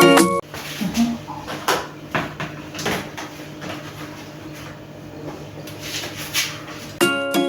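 Light clicks, knocks and scrapes of kitchen handling over a faint steady hum, typical of a spoon working in a bowl while spices are mixed. Plucked-string background music plays for the first half-second and comes back near the end.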